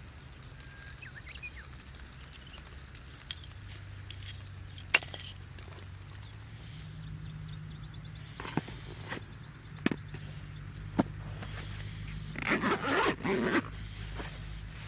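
Wood campfire crackling with a few sharp, separate snaps. A bird chirps briefly about a second in, and a short rustling scrape comes about a second before the end.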